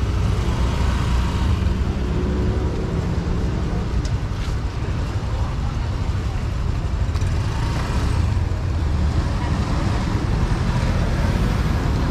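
Street traffic: a steady low rumble of passing motor vehicles, with faint voices under it.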